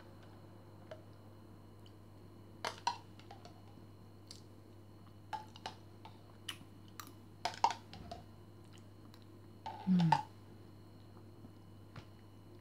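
Scattered light clicks and scrapes of a metal spoon against a plastic yogurt cup, with eating sounds, and a brief hummed "mm" about ten seconds in.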